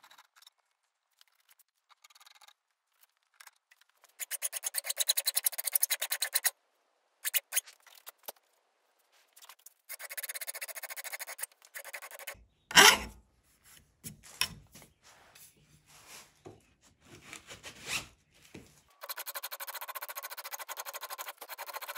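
Hand file rasping across the forged steel of an axe head clamped in a vise, filing off weld marks around the eye. Three spells of quick back-and-forth strokes, with a loud knock about halfway through and scattered clicks and taps between.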